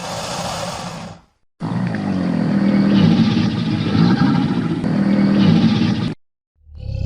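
Crocodile growling: a low, rough, rumbling growl lasting about four and a half seconds that cuts off abruptly. Before it, another sound fades out about a second in, followed by a brief silence.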